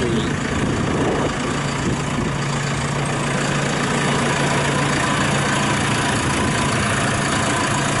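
JCB 3CX Sitemaster backhoe loader's diesel engine idling steadily.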